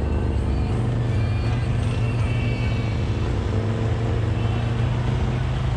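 Off-road vehicle engine running steadily at low revs, close to the microphone, with no revving.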